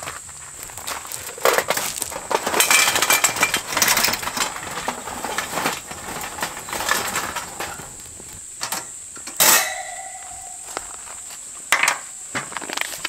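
Knocking and clattering of hard objects being handled, busiest in the first half, with one sharp clink about nine and a half seconds in that rings on briefly, and a few more knocks near the end.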